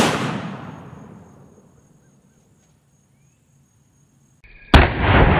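Black powder cap-and-ball revolver, a replica Colt 1847 Walker .44, fired with birdshot over 40 grains of powder and a cardboard overshot card: the echo of a report that went off just before dies away over about two seconds. After a short silence, a second sharp report comes near the end and fades slowly.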